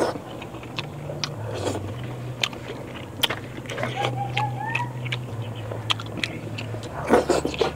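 Close-up chewing and wet mouth clicks and smacks of rice and pork blood stew being eaten by hand, in scattered short sharp sounds with a louder cluster about seven seconds in, over a steady low hum.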